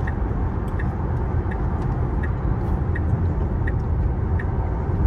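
Steady road and tyre noise inside a Tesla's cabin while it drives, with a light tick repeating evenly about every three-quarters of a second.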